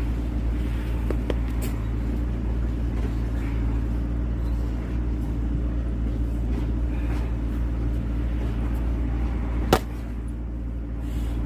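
Engine of a wood splitter running steadily at an even speed, with a single sharp snap near the end.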